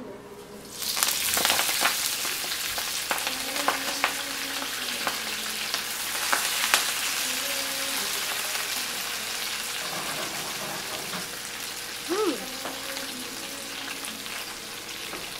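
Food sizzling in a hot frying pan on the stove, a dense hiss with scattered crackles and pops that starts suddenly about a second in and keeps going.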